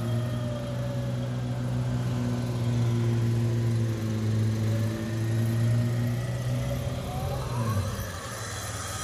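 Nissan Patrol 4WD's engine running steadily, with a hum, while a winch hauls it slowly up a muddy rut. Near the end the hum wavers and a whine rises in pitch.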